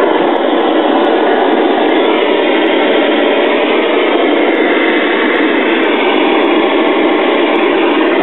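Loud, steady static hiss from the speaker of a 1982 Sylvania E32-chassis color TV receiving no station, a sign that its audio section is working again after the flyback transformer replacement.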